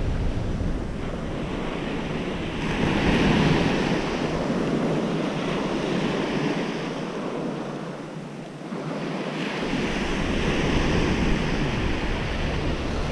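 Ocean surf washing onto a sandy beach, swelling about three seconds in, easing near the middle and building again toward the end, with wind buffeting the microphone.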